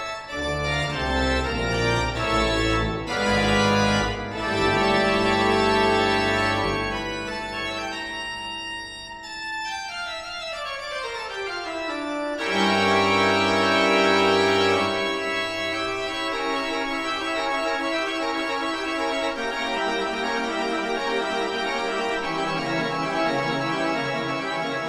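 Organ music playing sustained chords, with a long downward glide in pitch around the middle before full chords come back in.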